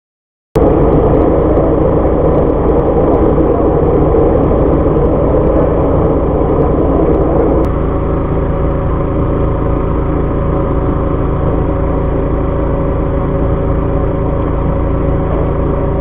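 Fishing boat's engine running with a steady drone. The sound cuts in about half a second in, and its tone shifts abruptly partway through, where the footage is cut.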